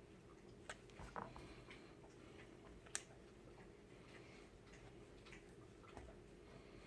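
A few faint clicks and taps of small parts being handled against a pistol's polymer grip, with a sharper click about three seconds in, over near silence.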